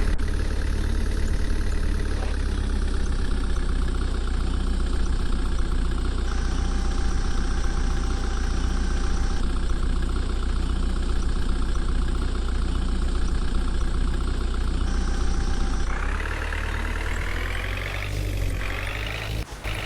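Heavy diesel engine of a backhoe loader or tractor running steadily with a deep rumble, rising in pitch and getting louder about sixteen seconds in, as it comes under more throttle.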